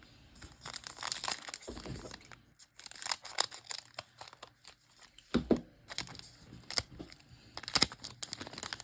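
Trading cards and their foil pack being handled up close: irregular crinkling and rustling with a few light knocks as the cards are shuffled and set down.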